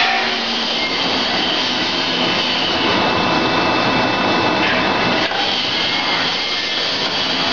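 Automatic welding machine running: a loud, steady, rough hiss.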